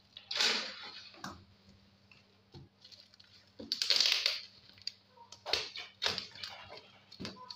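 Utility knife cutting through packing tape and plastic wrapping on a parcel, the plastic crinkling and crackling in irregular bursts, the loudest about four seconds in.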